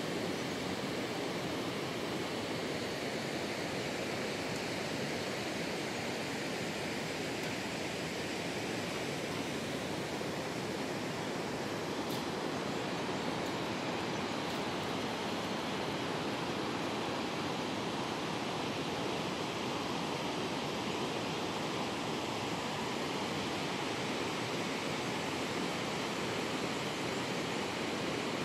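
Shallow river water rushing steadily over rapids, an even, unbroken rush of flowing water.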